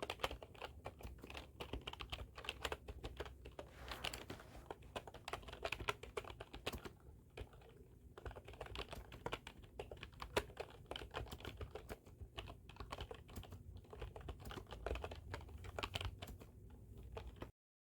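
Computer keyboard being typed on: a fast, irregular run of key clicks with brief pauses, stopping abruptly near the end.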